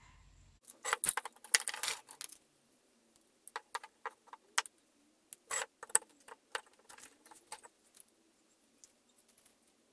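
Metal clicking and rattling as a chisel is fitted into a steel honing guide and the guide is clamped onto it. A quick run of clicks comes in the first couple of seconds, then separate clicks follow every half second or so.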